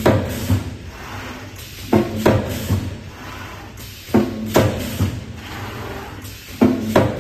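Spot welding machine cycling: a pair of sharp clunks with a short metallic ring about every two seconds as it closes on and releases the workpiece, four cycles in all, over a steady low hum.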